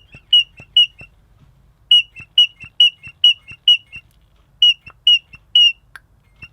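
Rubber primer bulb on a McCulloch strimmer's carburettor being pumped over and over, each press giving a short, high squeak, in three quick runs with short pauses between. The bulb is working and drawing fuel through the freshly cleaned carburettor.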